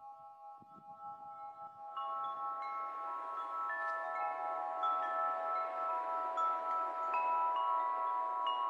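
Wind chimes ringing: many overlapping ringing notes with scattered higher ones struck at random, growing louder about two seconds in.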